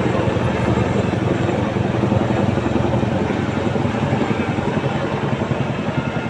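Helicopter flying past with a rapid, steady rotor chop over the engine noise, loud and easing slightly toward the end.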